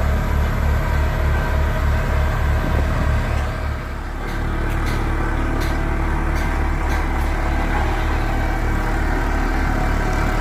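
Heavy diesel engine of a road-construction machine running steadily with a low, pulsing drone. About four seconds in the drone dips and changes, and a few sharp knocks follow shortly after.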